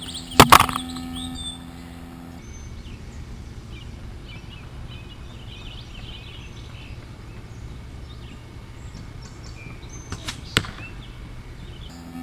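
Compound bow shooting a carbon hunting arrow: a loud sharp double crack of the string release and the arrow leaving, about half a second in, with a brief trailing hiss. Then a steady low hum. Near the end come a couple of light clicks and another sharp crack of the next shot.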